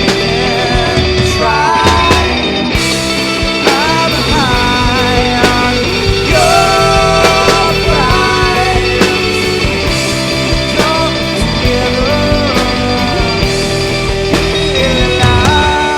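Rock band playing a song in full mix: drums, bass, electric guitar and a sung lead line, loud and steady.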